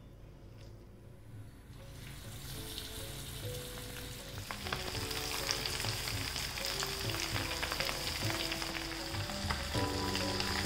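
Batter-coated chicken pieces deep-frying in a pan of hot oil: a steady sizzle with frequent crackles. It starts about two seconds in and grows louder about halfway through. Background music with held notes plays underneath.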